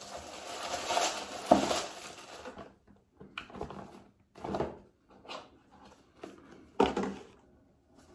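Plastic packaging rustling and crinkling as it is handled and opened for a couple of seconds, then short separate handling noises of a small cardboard box, one sharper knock among them.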